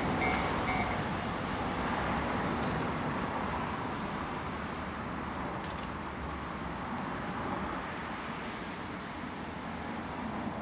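Level-crossing warning alarm ringing its repeating electronic tones, which stop about a second in. A steady vehicle rumble follows and slowly fades.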